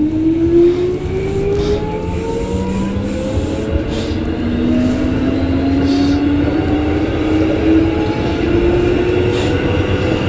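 Keikyu 1500-series electric train running, heard from inside behind the cab: a motor whine rises in pitch as the train accelerates, starting over once partway through and climbing again, over a steady low rumble of wheels on rail.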